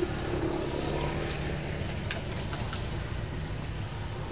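Wind rumbling on the microphone, with a faint low hum and a few light clicks.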